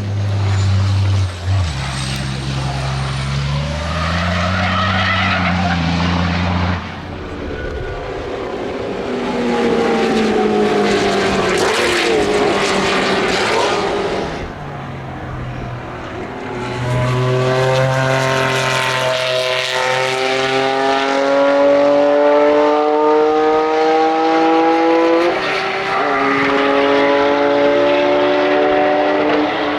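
Racing car engines on a circuit. First a deep, low-revving engine for several seconds, then a higher-revving engine accelerating hard through the gears, its pitch climbing steadily with upshifts twice near the end.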